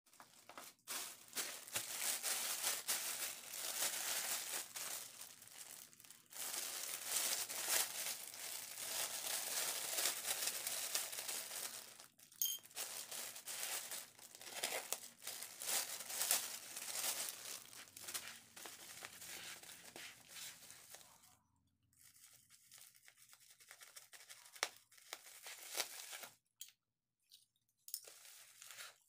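Clear plastic bag and bubble-wrapped parcel crinkling and tearing as the bag is opened and the parcel is pulled out. Dense, continuous rustling for about the first twenty seconds gives way to sparser crackles and taps.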